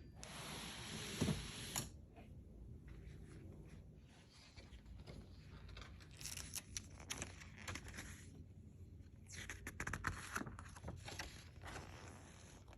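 Faint handling noise of packaging being unpacked: rustling, scraping and tearing in several short stretches, with scattered clicks and taps.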